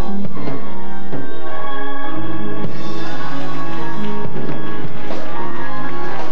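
Live gospel church music: sustained instrumental chords with occasional drum kit hits, played loud.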